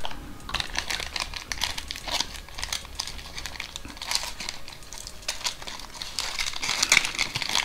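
Clear plastic packaging bag crinkling in the hands: a dense, irregular crackle, briefly loudest about seven seconds in.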